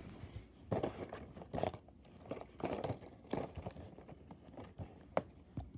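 Cardboard toy train boxes with plastic windows being handled and shifted: irregular taps, scrapes and rustles, with one sharp click about five seconds in.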